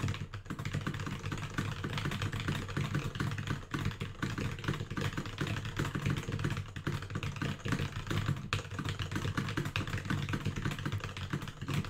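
Very fast typing on a computer keyboard, a rapid, continuous run of keystrokes several a second, over a steady low hum.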